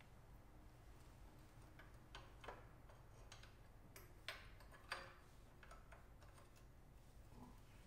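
A few faint, irregular clicks of a ratchet wrench working the engine oil drain plug, the loudest two a little past the middle, over near silence.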